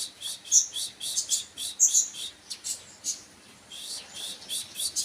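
A kolibri ninja (brown-throated sunbird) singing a rapid run of short, sharp, high chirps, about three to four a second, with a brief softer lull a little past halfway.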